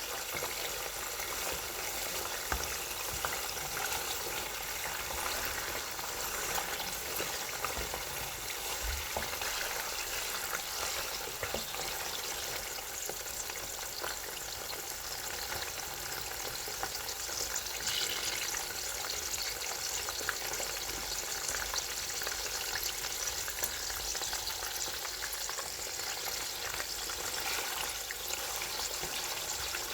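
Food deep frying in hot oil: a steady, dense sizzle with constant small crackles and pops.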